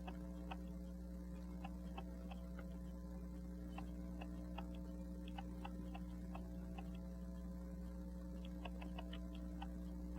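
Faint, unevenly spaced ticking from the escape wheel and pallet lever of a Rockford pocket watch movement being worked by hand. The train is sluggish, which the owner puts down to dried oil. A steady electrical hum sits underneath.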